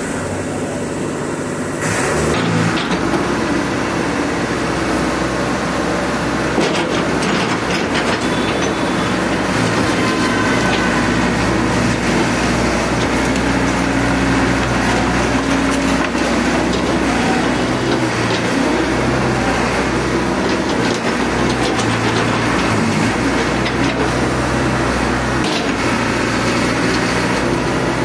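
Caterpillar E70B excavator's diesel engine running steadily. It gets louder and deeper about two seconds in as the operator works the hydraulic controls.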